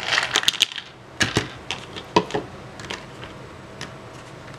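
Dried cacao beans pouring and rattling into a small plastic container, then a few separate sharp knocks as the plastic containers are handled and set down on a table.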